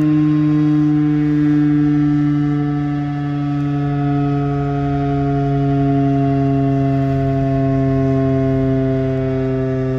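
Federal Signal RSH-10 Thunderbeam outdoor warning siren sounding its attack signal: a loud, steady multi-note siren tone that slowly sinks in pitch, its loudness swelling and dipping slightly.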